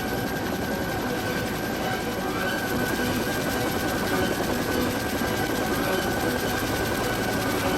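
Iroquois (Bell UH-1) helicopter running, a steady rapid rotor chop with a high, even turbine whine.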